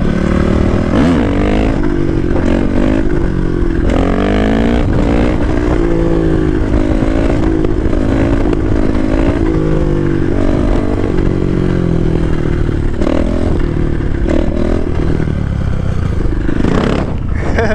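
Dirt bike engine revving up and down over and over, its pitch rising and falling with the throttle as the bike is held up in a wheelie.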